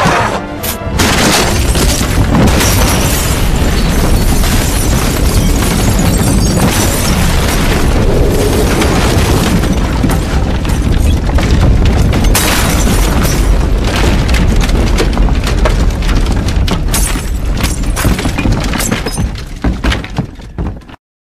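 Film sound effect of a building exploding: a loud blast about a second in, then a long stretch of debris shattering and crashing over a heavy low rumble, with background music. It thins out near the end and cuts off abruptly.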